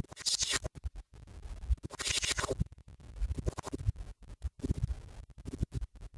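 Choppy electronic music with scratch-like hissy swells, deep bass hits and frequent sudden drop-outs, the loudest swells coming twice in the first three seconds.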